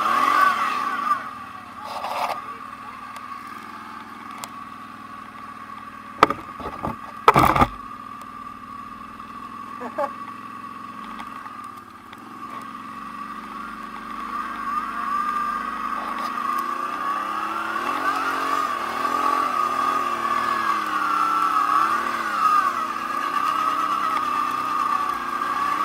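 ATV engine running under a steady high whine, quiet at first and then revving up and down over the last third. A couple of sharp knocks stand out about a quarter of the way in.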